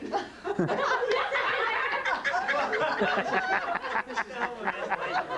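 A roomful of dinner guests bursting out laughing and talking over one another, suddenly, just after the start.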